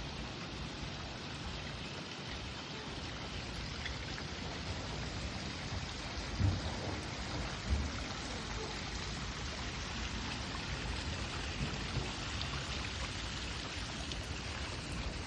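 Steady splash and patter of water, with two short low thumps near the middle.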